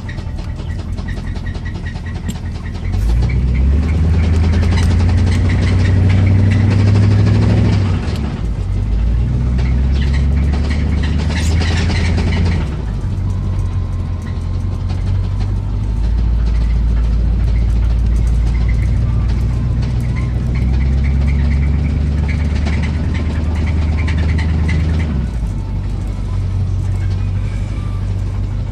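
1985 Chevrolet Silverado pickup's engine running while driving, getting louder in three stretches of acceleration with easing off in between, with an engine knock.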